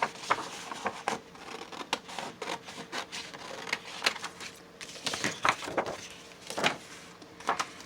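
Scissors cutting through a sheet of paper: a run of irregular, crisp snips.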